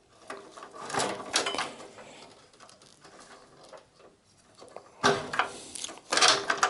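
Cables and a gloved hand rubbing, scraping and clicking against a steel desktop PC chassis as the front-panel cable is worked loose. There are a few sharp clicks about a second in, and louder, busier scraping from about five seconds in.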